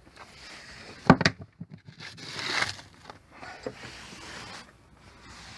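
A sharp knock about a second in, followed by a few clicks and then rustling and scraping.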